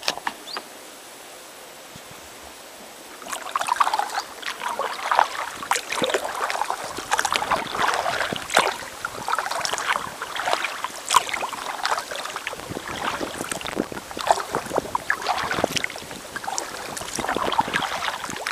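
Kayak paddle strokes in calm river water, splashing and dripping irregularly, starting about three seconds in.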